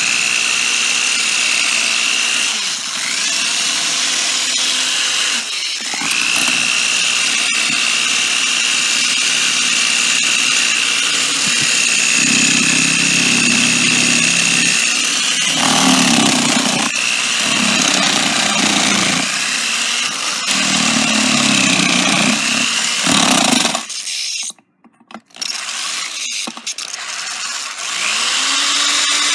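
Cordless power drill running with a steady high whine as its bit grinds into an electrical outlet. The motor's pitch dips as it bogs under load, with rough, rattling grinding through the middle stretch. It stops briefly near the end, then starts up again.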